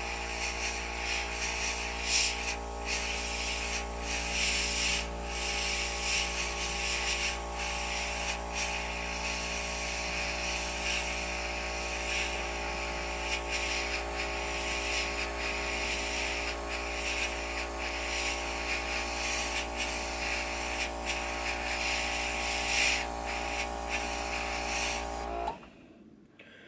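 Hobby airbrush hissing as it sprays paint, over the steady hum of its small compressor motor, with short breaks in the hiss. Both cut off suddenly near the end.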